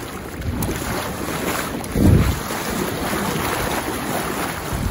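Fast river current rushing and swirling around a wading angler, with wind buffeting the microphone. There is a brief louder surge about two seconds in.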